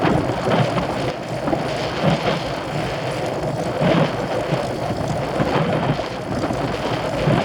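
Wind rushing over the microphone of a moving road bicycle: a steady rumbling noise with irregular gusty swells, mixed with tyre and road noise.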